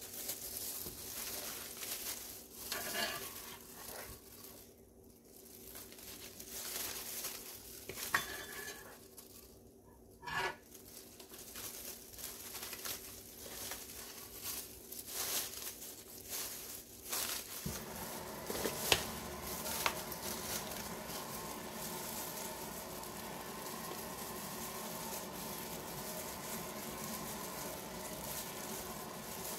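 Gloved hands tossing rice paper salad in a disposable aluminium foil tray: plastic gloves and foil crinkling and rustling in irregular handfuls. A little past halfway a steady hiss comes in underneath and carries on.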